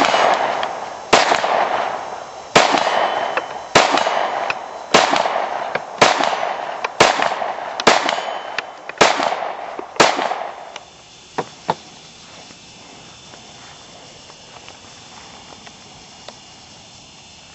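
A handgun fired slow and steady, about ten shots roughly a second apart, each followed by a long echo rolling away over the open field. The shooting stops about ten seconds in, followed by two faint clicks and then quiet outdoor background.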